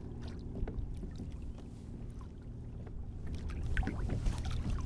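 Water lapping and splashing lightly against a kayak over a low, steady rumble, with small splashes and clicks more frequent in the second half.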